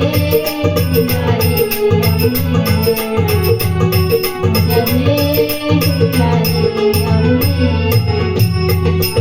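Marathi gavlan folk devotional music: an instrumental passage with a steady, pulsing low drum beat and jingling, rattling percussion on a regular rhythm under a sustained melody line.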